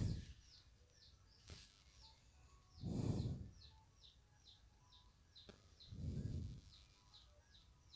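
A small bird chirping over and over, short downward chirps about two a second. Two soft low whooshes of noise come about three and six seconds in.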